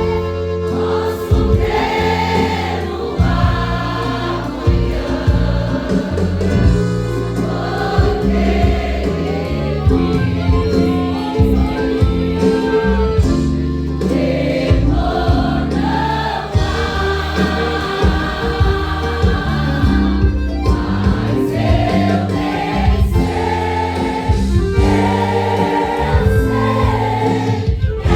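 Choir singing a Pentecostal gospel praise song in Portuguese over a full band accompaniment with steady bass.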